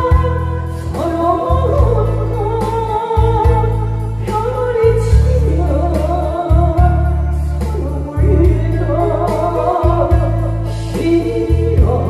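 A woman singing a Korean trot song into a headset microphone over loud amplified accompaniment with a heavy, pulsing bass beat, her voice wavering with vibrato on held notes.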